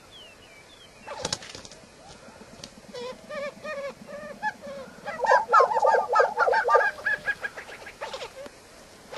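Displaying male lesser prairie-chickens calling on a lek. A run of quick, repeated clucking notes builds to its loudest about halfway through, with a few sharp, short calls standing out near the start and near the end.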